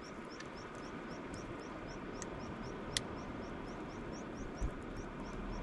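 Freshly lit campfire with a few sharp pops over a steady background rush. A high, short chirp repeats about three times a second, from a bird or an insect.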